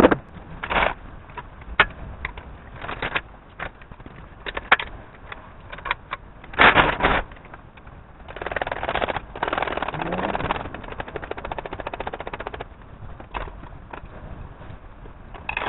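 Scattered knocks and clunks, then a stretch of rattling noise about halfway through that turns into a run of rapid, even clicking.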